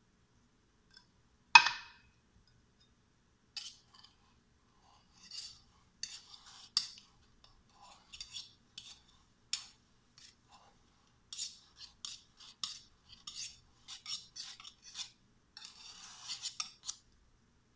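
A sharp metallic clink about a second and a half in, then a run of short, irregular scraping strokes of a metal utensil against the rim of a tin can of evaporated milk as it is poured out.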